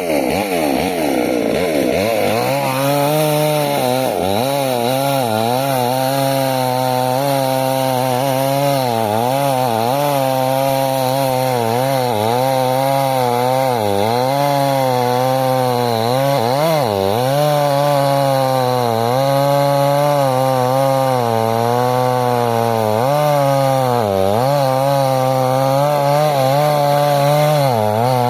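Chainsaw cutting through a large log, its engine running under load. The pitch drops over the first two seconds, then holds lower and wavers, dipping briefly every few seconds as the chain bites into the wood.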